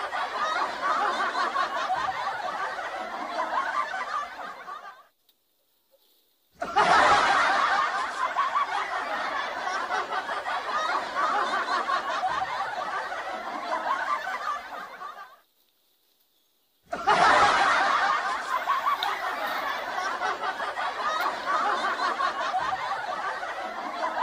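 Continuous laughter that breaks off abruptly twice, about five and fifteen seconds in, into short gaps of silence. Each stretch starts again at full loudness.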